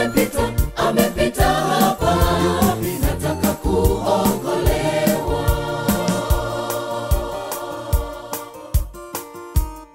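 Gospel choir singing over a keyboard-and-drum backing; about halfway through the voices drop out, leaving the keyboard and a steady beat.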